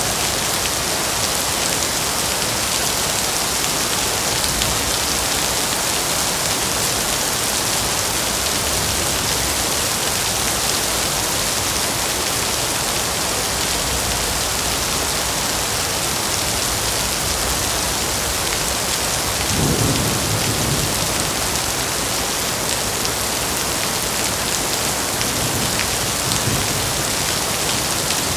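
Heavy rain falling steadily in a dense, even hiss, with a short low rumble of thunder about twenty seconds in and a fainter one a few seconds later.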